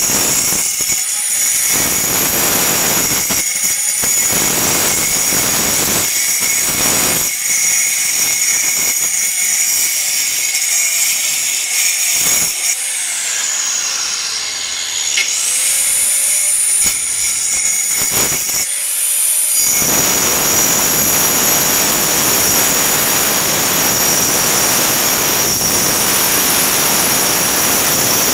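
Angle grinder cutting into a concrete block wall: a loud, steady high whine over grinding noise. The whine dips and recovers in pitch midway as the disc bites, then gives way to a dense, even cutting hiss.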